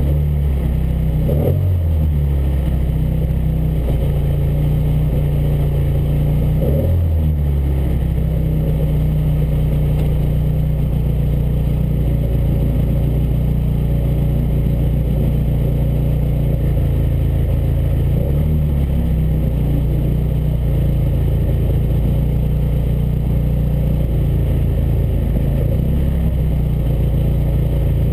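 Slalom car engine idling steadily, with four brief throttle blips that raise the pitch and drop straight back: one about a second and a half in, one near seven seconds, one around eighteen seconds and one near twenty-five seconds.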